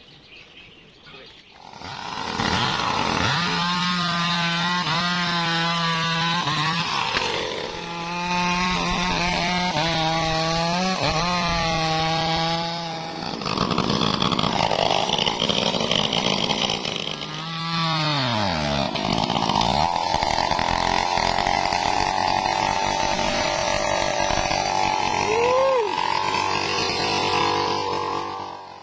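Stihl MS 381 two-stroke chainsaw running at speed, its engine note wavering as the throttle is worked. About eighteen seconds in, its pitch drops in a long falling glide, then the saw picks up again and runs steadily to the end.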